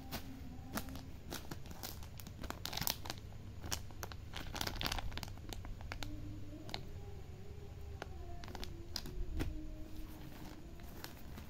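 Plastic packaging crinkling and rustling as hands handle it, in irregular bursts of sharp crackles.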